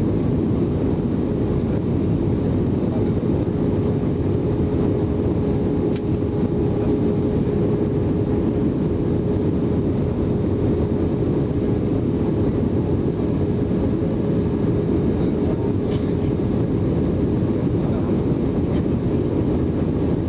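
Airbus A320 airliner in descent on approach, heard as a steady, even cabin roar with a constant hum running through it.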